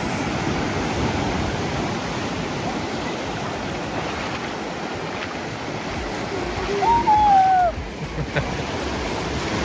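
Sea waves breaking and washing up a sandy beach in shallow surf, a steady rushing wash. About seven seconds in, a person gives a short high cry that falls in pitch, the loudest sound.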